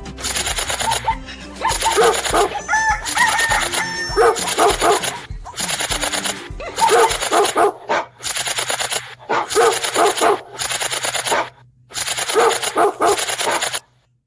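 Dog barking sound effect repeating in bursts of about a second, over and over with short gaps, cutting off abruptly just before the end.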